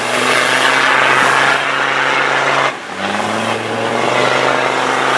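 Off-road 4x4 engine revving hard under load as it ploughs through a muddy water pit, with water and mud splashing. The revs drop briefly a little under three seconds in, then build again.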